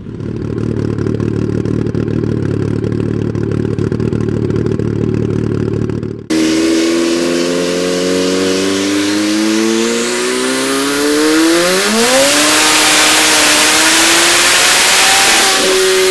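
Turbocharged Yamaha R1 inline-four engine, first running steadily at speed on the road. After a cut about six seconds in, it makes a full-throttle chassis dyno pull: the engine note climbs in pitch for several seconds, then holds high with a loud rushing noise, and dips briefly near the end.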